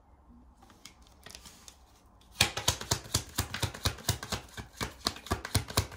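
A deck of tarot cards being shuffled by hand: a quick run of card slaps and flicks, about five a second, starting a little over two seconds in.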